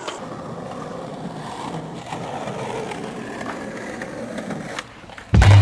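Skateboard wheels rolling over concrete, a steady rolling noise without pops or landings. Loud music with a heavy bass beat comes in near the end.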